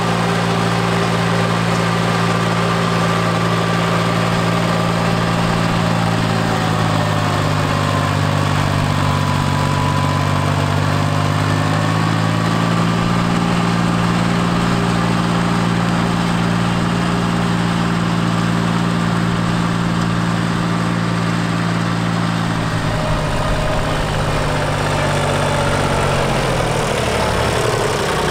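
Yanmar FX175 mini tractor's diesel engine running steadily under load while driving a rear-mounted rotary tiller through soil. The engine note sags briefly about a third of the way in and shifts again near the end.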